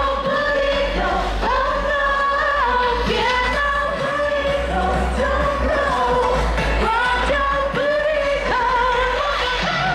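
Live pop song with singing over a band with a heavy, steady bass.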